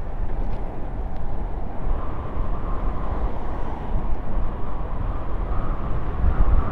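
Wind buffeting the microphone and tyres rolling on asphalt as a Trottibike, a large-wheeled kick scooter, coasts down a paved road: a steady rushing noise.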